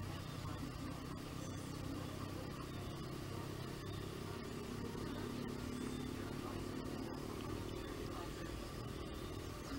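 Low, steady engine-like hum that grows stronger through the middle and eases off near the end.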